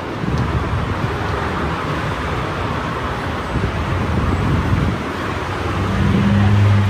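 Steady city road traffic noise mixed with wind buffeting the microphone. Near the end a low steady engine-like hum comes in and the sound grows a little louder.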